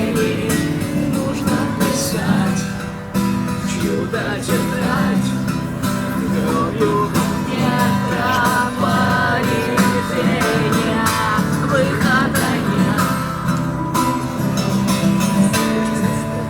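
A song played on acoustic guitar, strummed, with singing.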